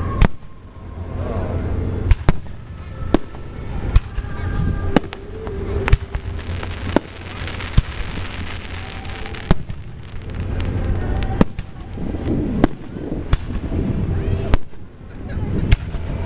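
Aerial fireworks bursting, a series of sharp bangs about one every second, with crowd voices between them.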